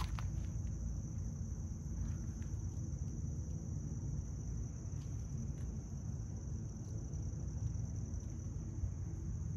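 Crickets chirring in one steady high-pitched trill, over a steady low rumble, with a few faint clicks.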